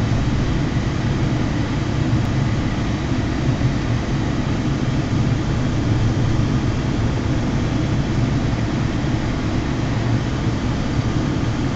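A moving road vehicle: a steady rumble of engine and tyres on asphalt, even throughout with no distinct events.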